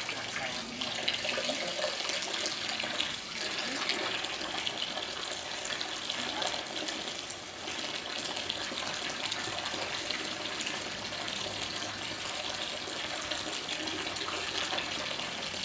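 Steady running water, like a tap pouring into a pool, in the giant otter's enclosure.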